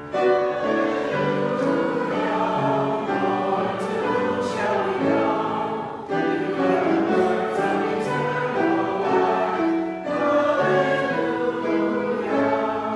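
Congregation singing the Gospel acclamation, the sung response before the Gospel reading, in slow, held phrases. There are short breaths between phrases about six and ten seconds in.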